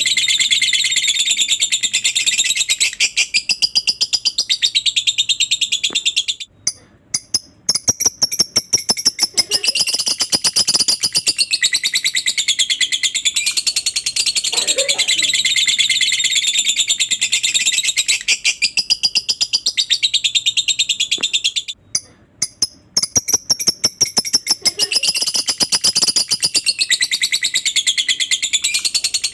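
Lovebird 'ngekek': a long, unbroken rapid high-pitched chattering trill, breaking off briefly twice and starting again.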